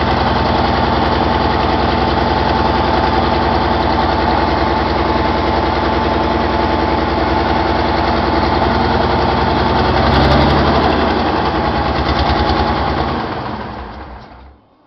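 Deutz V12 diesel engine running unloaded on a stand, a steady low note with a dense run of harmonics. It gets briefly louder about ten seconds in, then dies away near the end.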